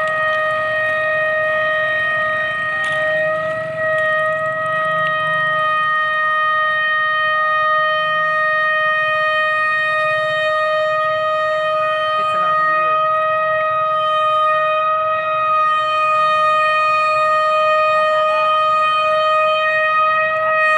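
Pakistan Railways HBU-20 diesel locomotive's air horn sounding one long, unbroken blast on a single steady note as the train approaches: a warning to people standing on and beside the track.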